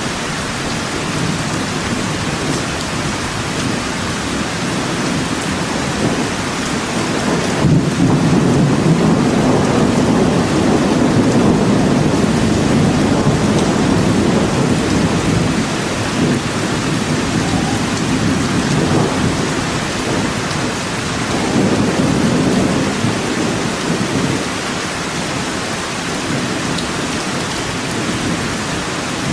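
Steady rain falling in a forest, with thunder rumbling low under it: a long roll begins about eight seconds in and lasts several seconds, and fainter rolls follow later.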